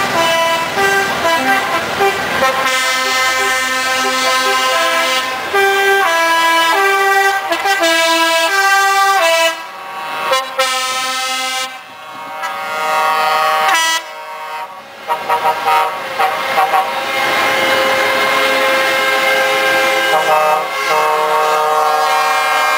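Truck air horns sounding in long runs of changing notes, like a tune played on the horns, with brief breaks about ten and fourteen seconds in.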